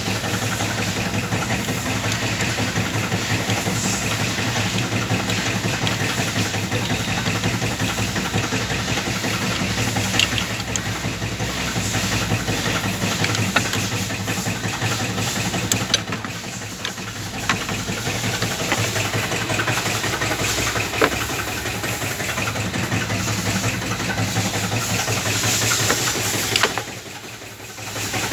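BMW X1's four-cylinder diesel engine idling steadily, with a few sharp clicks and a brief drop in level near the end. The mechanic traces this engine's noise to a faulty crankshaft damper pulley.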